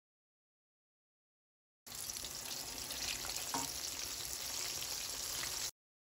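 Strips of brinjal (eggplant) deep-frying in hot oil, a steady sizzle that starts about two seconds in and cuts off abruptly near the end.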